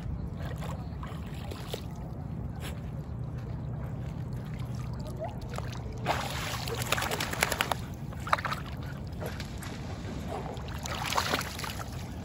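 A golden retriever and a small Morkie wading and sloshing in shallow water as the retriever dunks its head under. There are bursts of splashing from about six to eight seconds in and again near eleven seconds, over a steady low rumble.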